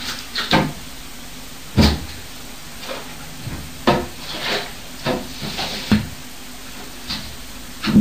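Sharp household knocks and thuds at irregular intervals, the loudest about two seconds in, with faint hissing between them.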